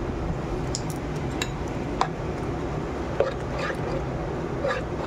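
A spoon stirring thick chana batter in a bowl as Eno fruit salt is mixed in, with wet squelching and several sharp clicks of the spoon against the bowl, over a steady low background hum.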